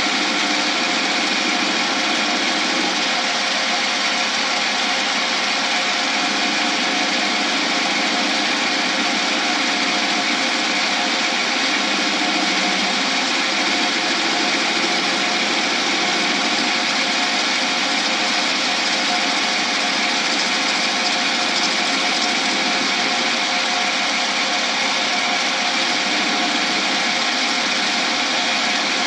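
Lathe running steadily while the tool turns down a cast shift-knob blank to round.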